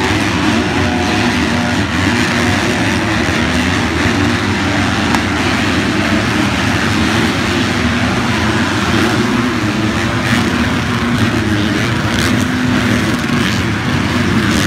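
A pack of motocross bikes racing by together, their engines at high revs blending into one loud, continuous noise.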